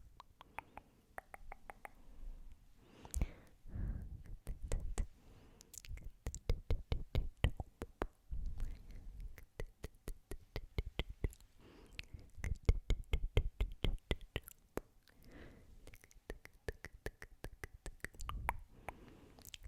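Close-miked whispering and breathing, with many quick, irregular clicks and crackles in between.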